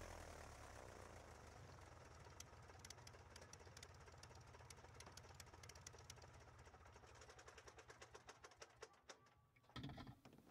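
1946 Aeronca Champ's small four-cylinder engine idling unevenly and winding down as it is shut off: the pulses grow fainter and sparser and stop about nine and a half seconds in. A short clatter follows just after.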